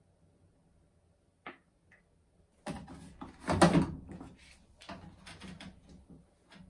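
Household handling noise: a small click, then a loud burst of clattering and rustling about three seconds in, followed by lighter knocks and rustles.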